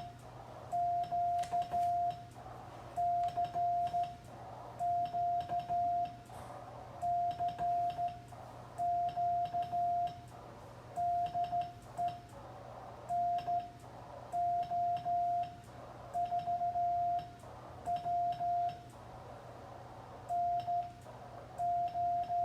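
Morse code (CW) sent by hand on a straight key: a steady single-pitched beep keyed on and off in dots and dashes, sent slowly in letter groups with pauses between them. The key's contacts click faintly with each element, and receiver hiss fills the pauses.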